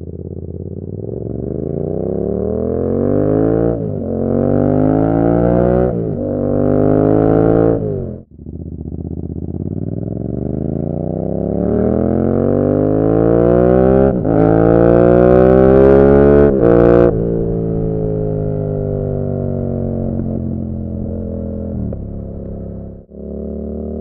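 Yamaha MT-07's 689 cc parallel-twin engine through an SC Project Conic exhaust with the baffle out, accelerating hard through the gears. Its pitch climbs and drops back at each upshift, three times in quick succession, then the throttle is closed briefly about eight seconds in. It pulls up through two more shifts, then the pitch falls slowly as the bike slows.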